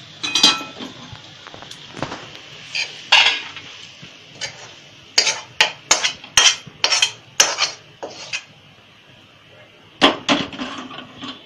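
A metal spoon knocking and scraping against an iron kadhai and a steel plate as cooked potato filling is emptied out of the pan. Irregular sharp taps, with a quick run of about ten between about five and eight and a half seconds in.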